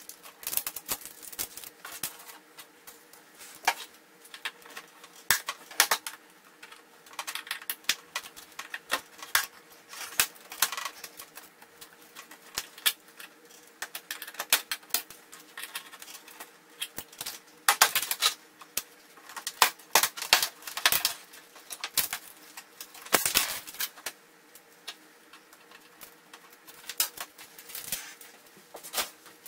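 Irregular clicks, taps and clatter of a flat-screen TV's metal back plate and plastic edge clips being worked loose by hand during a teardown, over a faint steady hum.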